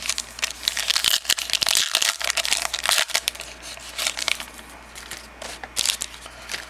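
A foil-wrapped trading card pack being torn open and its wrapper crinkled, with a dense run of crackling most of the way through.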